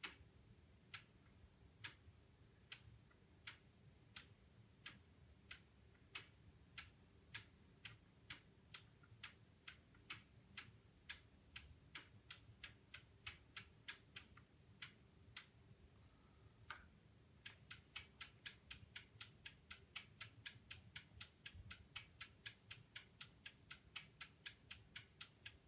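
Relays in a homebuilt relay computer's sequencer clicking as it is clocked through, each click a sharp, dry snap. The clicks start about a second apart and quicken to two or three a second. After a short pause they come in a faster, even run of about five a second.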